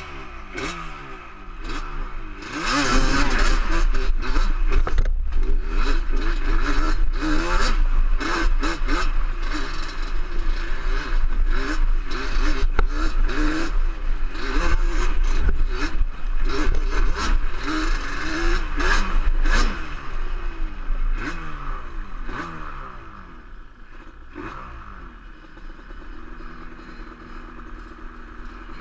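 Yamaha sport ATV engine revving up and down again and again while being ridden over a rough trail, with knocks and rattles from the machine over the ground. It eases off about twenty seconds in and settles to a steadier, lower running near the end.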